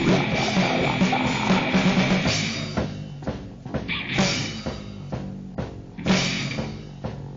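Grind/noise music: a dense wall of distorted guitar and drums that breaks up about three seconds in into separate hits with short gaps between them.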